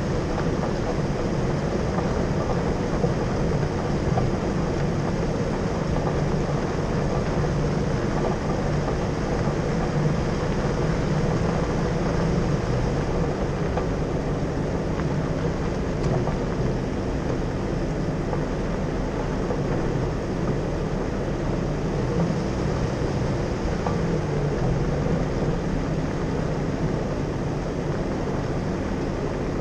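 Jeep driving steadily along a gravel dirt road: continuous engine and tyre noise with no let-up.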